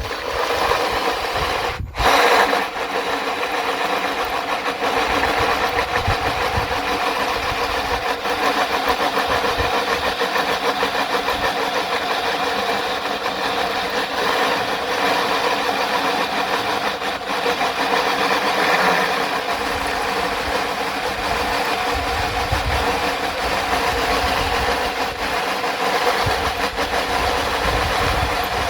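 Electric drilling machine running steadily as it drills into a metal plate. It starts up and, after a brief stop about two seconds in, keeps running evenly.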